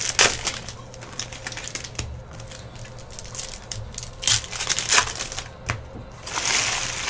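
Foil wrappers of Panini Donruss soccer card packs crinkling and crackling as they are torn open and handled by hand: a run of sharp crackles, then a denser, louder rustle near the end.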